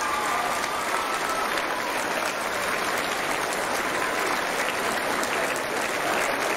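A large audience clapping steadily.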